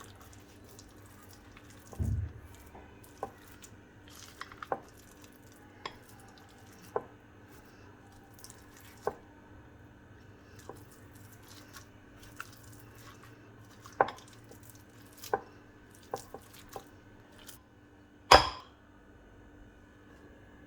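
Kitchen utensils being handled: irregular light taps and clinks, a dull thump about two seconds in, and a louder sharp clack near the end.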